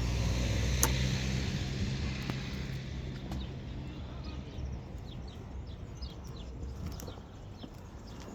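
A motor vehicle's engine running close by and fading away over the first few seconds, with a sharp click about a second in. Short high bird chirps follow.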